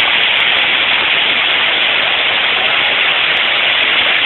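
Steady rushing noise of river water pouring through a barrage's fully opened gates and churning below them, constant and unbroken.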